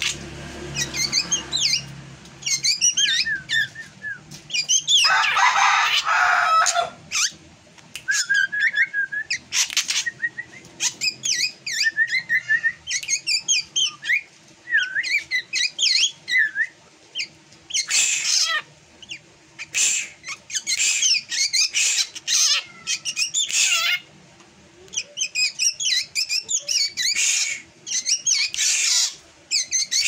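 Caged drongo singing a long, varied run of quick whistles, chirps and chattering notes, mixed with harsh rasping bursts, the longest about five seconds in.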